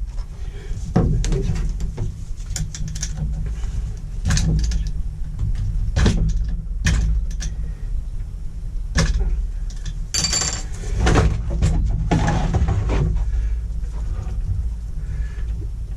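Hand tools and small strimmer engine parts being handled on a workbench: scattered clicks and knocks, with a short metallic ringing clatter about ten seconds in, over a steady low hum.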